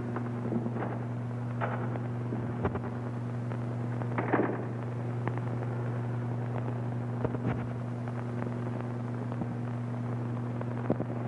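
Steady low hum under scattered soft clicks and knocks on an old film soundtrack, with a louder clatter about four seconds in.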